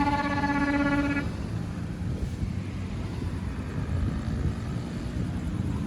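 A bus's basuri musical horn holds its last note, then cuts off about a second in, leaving a low, steady rumble of vehicle noise.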